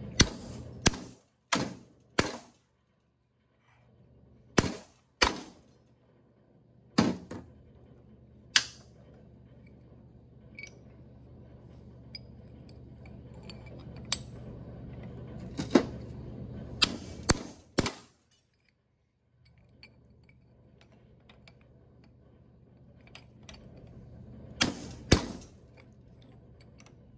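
Hammer blows on a metal rod, driving a U-joint bearing cap out of a drive shaft yoke clamped in a vise. The sharp metallic strikes come in irregular groups, about a dozen in all, over a low steady hum.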